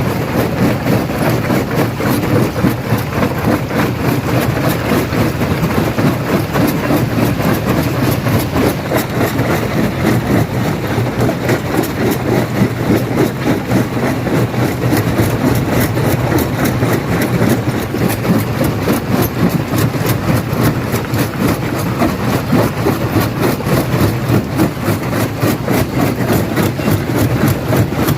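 Industrial stone crusher running under load: a steady machine drone overlaid with a dense, continuous rattle and crunch of rock being crushed.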